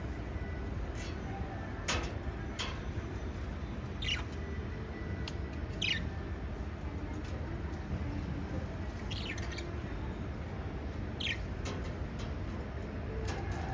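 Pet lovebirds giving short, scattered chirps every second or two, several of them sliding down in pitch, over a steady low background noise.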